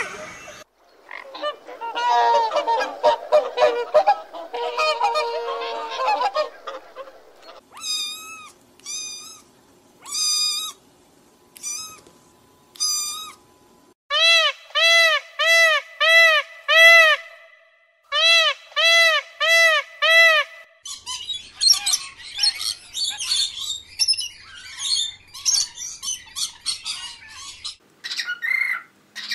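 A succession of animal calls. About halfway through comes the loudest part: a peacock's rapid series of loud honking calls, about two a second. It is preceded by dense chattering and spaced short calls, and followed by high, scratchy chattering.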